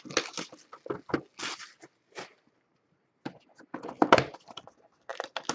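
Plastic shrink wrap crinkling and tearing as it is stripped from a Panini Prizm Draft Picks football card hobby box, then the cardboard box being handled and opened. It comes as irregular short crackles and rustles, with a brief pause in the middle.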